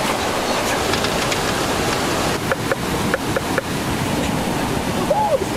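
Steady rushing water, an even hiss with no break, with a few brief faint high blips in the middle and a short rising-and-falling call near the end.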